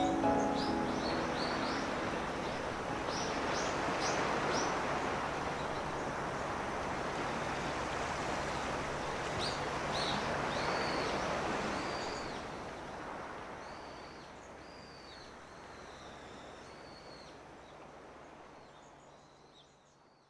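Surf washing against a breakwater in a steady, swelling rush, with birds giving short high chirps and hooked calls above it; the whole fades out over the last several seconds.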